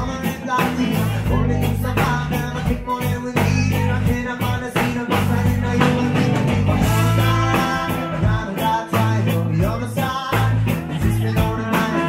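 Live rock band playing with a steady drum beat: electric guitar, bass guitar, trumpet and a singing voice.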